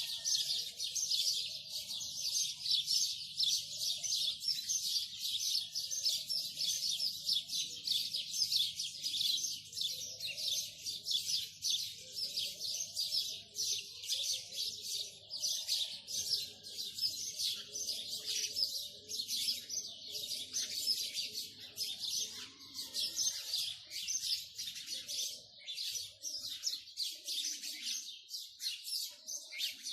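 Small birds chirping in a dense, unbroken stream of short, rapid high calls.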